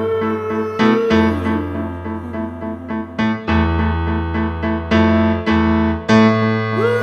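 Instrumental music: keyboard piano chords struck about once or twice a second over a sustained bass line, with a sliding melody line near the start and again near the end.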